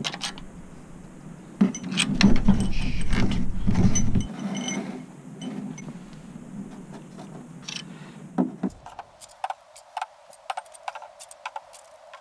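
Hand tools and metal parts clinking and clattering during engine repair work. There are scattered sharp clicks, a louder rough stretch about two seconds in that lasts about two seconds, and quicker light clicks near the end.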